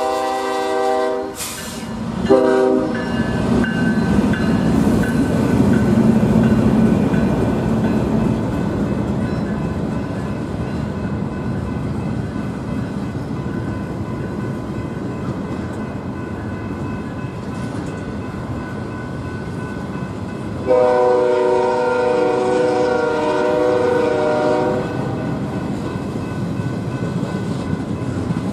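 Double-stack intermodal freight train rolling past, its wheels and cars making a steady rumble and clatter. An air horn sounds a chord that cuts off about a second in, gives a short blast about a second later, and sounds again for about four seconds a little past the two-thirds mark.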